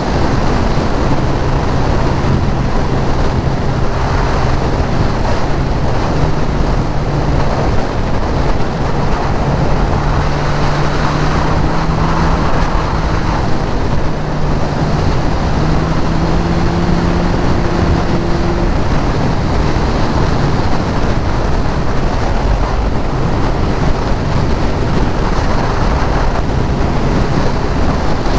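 Sport motorcycle cruising at road speed: steady engine note under heavy wind rush on the camera microphone. The engine pitch climbs slightly around a third of the way in, then eases back about two-thirds through.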